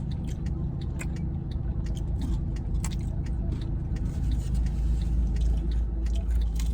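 Steady low outdoor rumble that swells from about four seconds in, with many small close clicks scattered over it.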